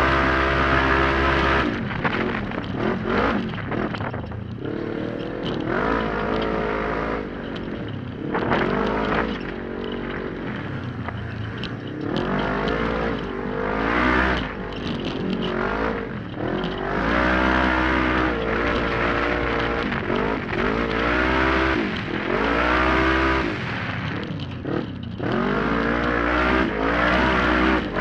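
Onboard sound of an open 1000-class UTV's engine at race pace on a wooded dirt trail, its revs climbing and dropping again every second or two with the throttle.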